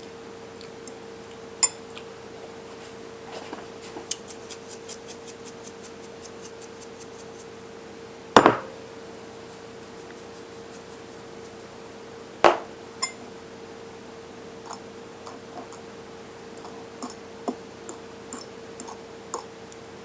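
Eating utensil clinking and scraping against a dish of cooked rice: a run of light, regular ticks, two louder knocks and scattered small clicks, over a steady hum.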